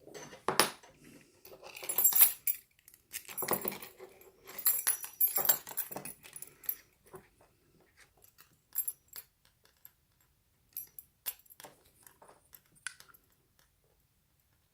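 Small metallic clicks and rattles of a lock cylinder being worked with its key and a plug follower as the plug is drawn out, with keys jangling. The clicking is busy at first, then thins to scattered single clicks.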